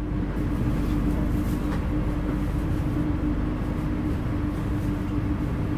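Passenger train pulling slowly away from a station, heard from inside the carriage: a steady low rumble with a constant hum.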